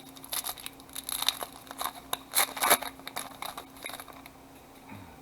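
Trading-card pack wrapper being torn open and crinkled by hand: a quick, irregular run of crackles and rips, loudest a little past halfway.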